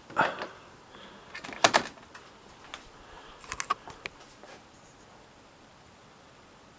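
Short clicks and knocks of a mains plug being pushed into a power-strip socket and its cable handled: a sharp click about a second and a half in and a quick cluster of clicks near four seconds.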